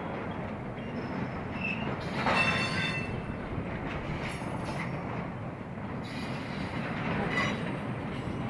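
Union Pacific intermodal freight cars rolling past with a steady rumble of steel wheels on rail. Brief high-pitched wheel squeals come about two seconds in and again near the end.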